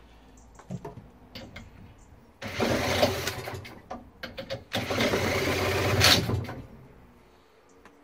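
A cordless drill on the flywheel nut spinning over a British Seagull Forty Plus single-cylinder two-stroke outboard to start it: two spells of cranking, about a second and then about two seconds, with a few clicks between.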